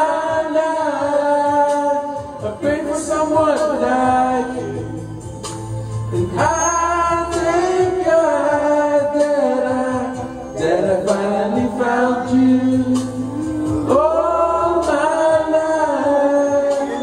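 Karaoke singing: voices sung into microphones over an R&B ballad backing track, with long held notes and a pulsing bass line.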